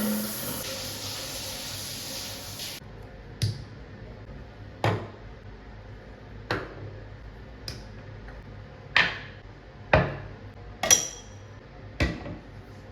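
A steady hiss that cuts off suddenly about three seconds in, then eight sharp knocks and clinks of hard objects, a second or so apart, the loudest near the end.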